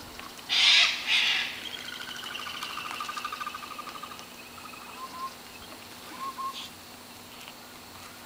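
Two loud, harsh sulphur-crested cockatoo screeches in quick succession about half a second in. A fainter rapid trilling bird call follows for a couple of seconds, then a few short chirps.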